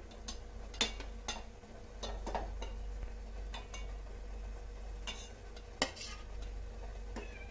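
Stainless-steel ladle clinking and scraping against a steel pot and plate while boiled rasgulla balls are lifted out and set down: about nine scattered clinks, the sharpest just before six seconds in. A low steady hum runs underneath.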